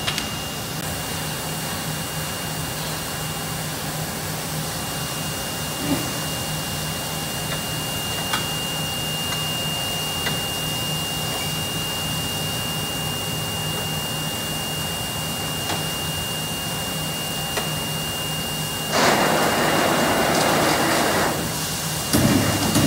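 Steady hum of shop machinery with a constant high whine, from the sheet-loading material handler and the CNC punch/plasma machine, with a few light knocks. About 19 seconds in a loud rushing hiss lasts about two seconds, and another starts near the end.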